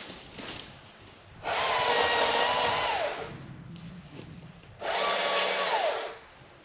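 Stihl MSA 220 battery chainsaw run in two bursts, about two seconds and then just over a second long, its motor whine dropping away each time the trigger is released.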